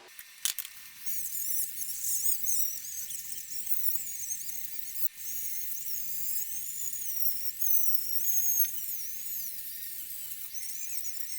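A high-speed power tool whining against metal, its high pitch wavering up and down as the load on it changes. A sharp click comes about half a second in.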